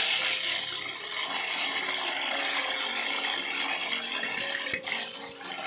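Coconut worms deep-frying in hot oil in a metal wok, a steady sizzle, with a single short knock about five seconds in.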